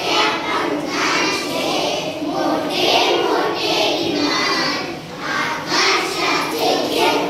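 A class of young children chanting an action rhyme about a big aeroplane with big wings in unison, in a sing-song rhythm. The rhyme is Marathi. There is a short dip between phrases about five seconds in.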